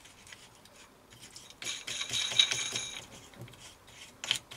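Steel-on-steel rattling and scraping with a ringing tone for about a second and a half, as a locking screw with a knob is fitted by hand into a steel lathe toolpost, then a single sharp click near the end.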